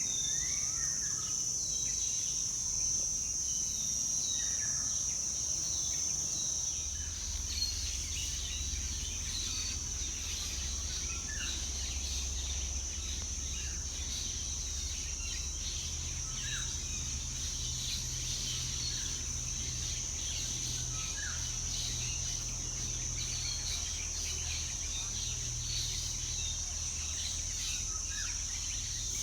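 Tropical forest ambience: a steady high-pitched insect drone with short bird chirps scattered through it. A faint low rumble lies beneath.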